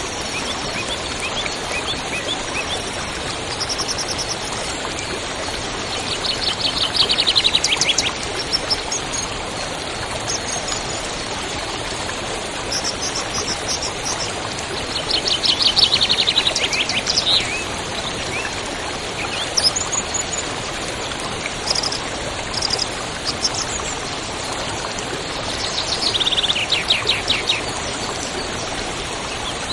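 Songbirds singing over the steady rush of a stream. One bird repeats a fast trill of rapidly falling notes three times, about every ten seconds, while other birds give short high chirps in between.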